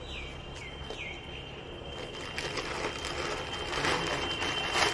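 Plastic parcel packaging rustling and crinkling as it is handled, loudest in two bursts near the end. A few short falling chirps sound in the first second, and a steady high whistle runs through the second half.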